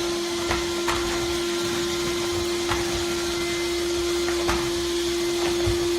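Vacuum cleaner running with a steady hum and hiss, with a few short knocks scattered through it.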